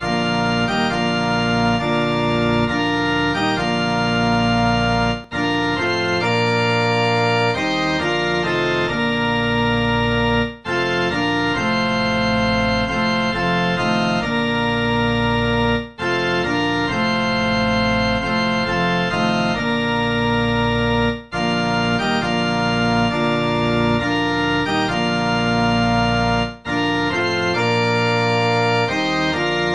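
Organ music playing slow, sustained chords, with a short break between phrases about every five seconds.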